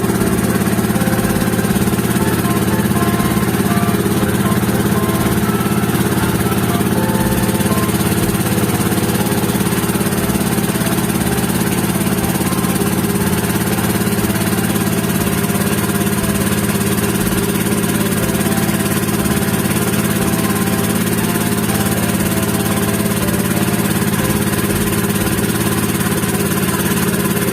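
Engine of a motorized bangka (outrigger boat) running steadily, with an even hum that does not change.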